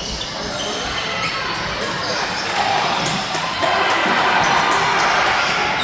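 Basketball game play: a ball bouncing on the court with short knocks and clicks, over crowd noise that swells and gets louder about halfway through.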